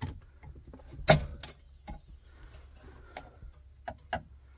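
Scattered, irregular clicks and knocks of hand work on a 2001 Chevy Silverado's column shift lever as its parts are worked loose; the loudest knock is about a second in.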